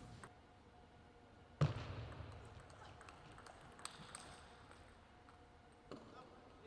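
Hushed table tennis arena between points: one thud about a second and a half in, followed by a brief murmur. Later come a couple of faint light taps.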